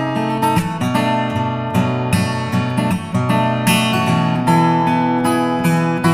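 Background music: acoustic guitar playing, a run of plucked and strummed notes.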